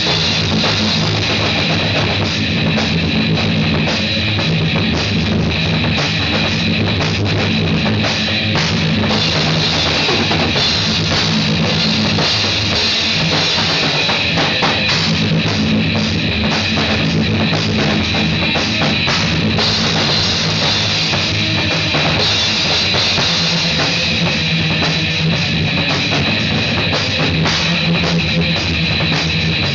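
Rock music on a drum kit and guitar, played loud without a break, with the drums hit densely throughout.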